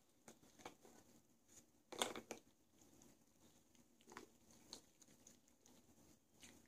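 Faint, scattered clicks and taps of a plastic Nina Ottosson Dog Casino puzzle toy as a dog noses and paws at its pegs, with a louder plastic clatter about two seconds in.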